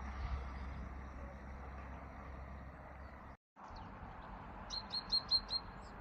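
Outdoor background sound with a steady low rumble, broken by a short dropout a little past three seconds. Near the end a bird gives a quick run of five high chirps.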